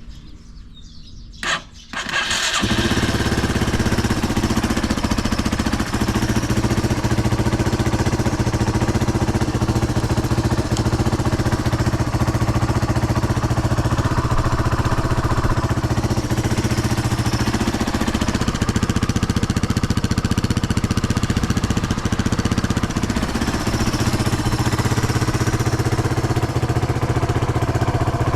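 A Yamaha Serow 225W's air-cooled single-cylinder four-stroke engine fires about two seconds in after a short click, then settles into a steady idle. The bike has an exhaust leak at the exhaust manifold joint.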